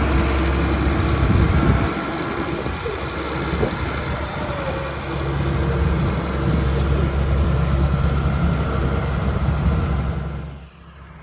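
Combine harvester running steadily, a heavy engine and machinery drone that drops away abruptly near the end.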